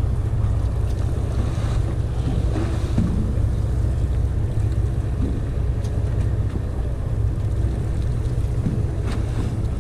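Wind buffeting the microphone over the steady low drone of the fishing boat's engine, with choppy sea water washing around the hull.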